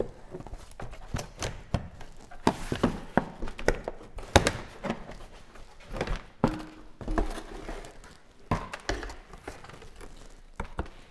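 Plastic engine undertray of a VW Golf Mk7 being unfastened and taken down by hand: an irregular string of knocks, clicks and plastic rattles, with a brief squeak about six and a half seconds in.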